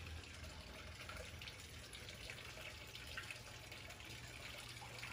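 Faint, steady trickle of running water from a small garden pond's water feature.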